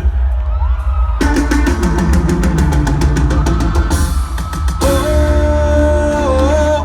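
Electronic show-opening music over a heavy bass beat. About a second in, a drum roll builds and speeds up, then gives way to a long held note near the end.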